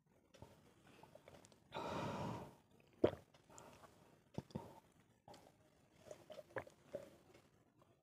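A person forcing down a glass of water: faint swallowing and mouth clicks with heavy breathing, and one loud breath out about two seconds in.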